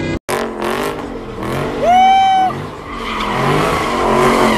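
Dodge Charger doing donuts: the engine revs up and down and the tyres squeal, with one long, steady squeal about two seconds in.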